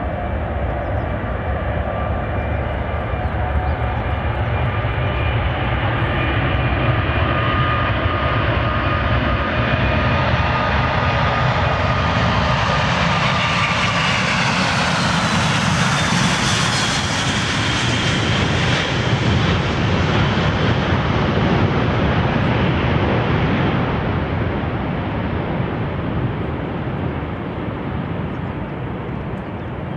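Airbus A380-800's four Rolls-Royce Trent 900 jet engines at takeoff thrust as the airliner rolls, lifts off and climbs away: a steady jet rumble with whining tones, brightest about halfway through as it passes, then slowly fading.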